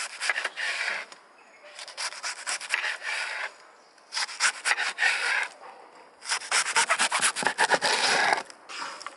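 Large kitchen knife shredding a half cabbage into fine strands on a wooden chopping board, with quick rasping slicing strokes. The strokes come in four runs of one to two seconds each, with short pauses between.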